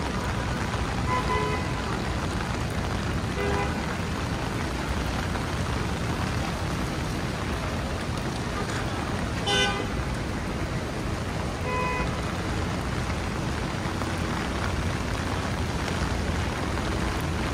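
Steady hiss of rain mixed with city street traffic, broken by a few short car-horn toots; the loudest toot comes a little past halfway.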